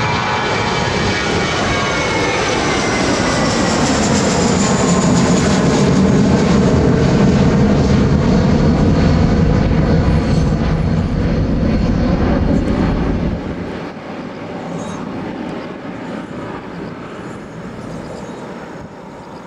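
Twin IAE V2500 turbofans of an Airbus A321-231 at takeoff power as the jet climbs out overhead: a whine falling in pitch as it passes, then a loud low rumble. About two-thirds of the way through the low rumble drops away suddenly, leaving a fading roar as the aircraft climbs away.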